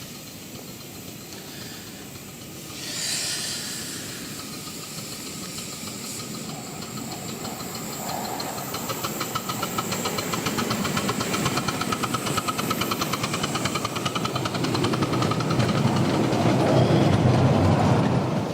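A miniature railway train running, with a short hiss about three seconds in. A fast, even beat then grows steadily louder as the train draws near, and drops away at the end.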